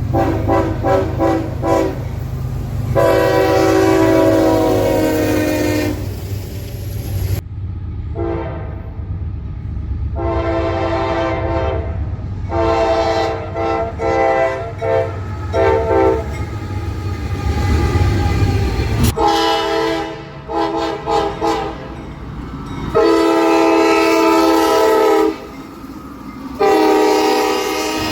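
Train horns sounding a horn show: multi-note chimes played as strings of quick short toots and a few long blasts, over a low rumble. The horn abruptly changes to a different one a few times.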